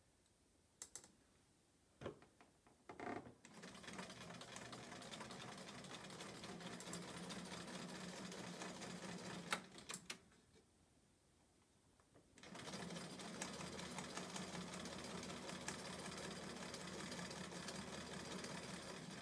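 Bernina sewing machine stitching in two steady runs of several seconds each, with a short stop in between and a few light clicks before and during the pause. This is chain piecing: one pair of quilt patches is sewn after another without clipping the thread.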